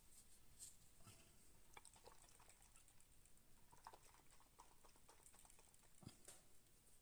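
Near silence, with faint rustling and small clicks of a cloth towel wiping and handling a filled glass jar; one soft knock about six seconds in.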